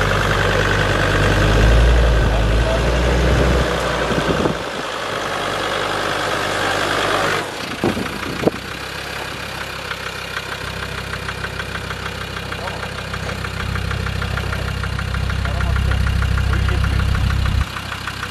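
Off-road 4x4 engine running steadily at low revs. The sound changes abruptly about seven and a half seconds in, and a couple of sharp knocks follow just after.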